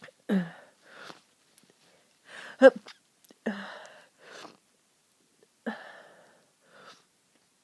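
A person with a stuffy head cold sneezing four times in a row, with short breaths between; the loudest, voiced sneeze comes about two and a half seconds in.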